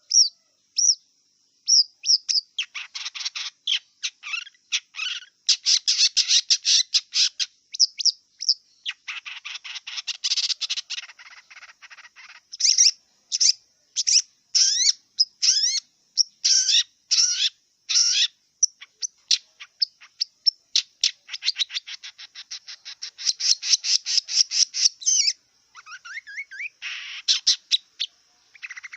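Long-tailed shrike singing a long, varied song: fast runs of rapidly repeated high notes and chattering trills, broken by short pauses, with some gliding whistles near the end.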